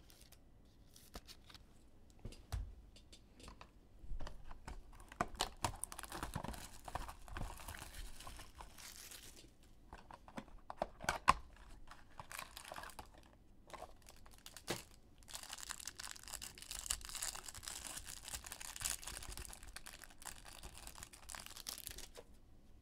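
A cardboard trading-card box being torn open by hand and its contents pulled out, in bursts of tearing and crinkling with sharp clicks and rustles of handling. A sharp click about halfway through is the loudest sound.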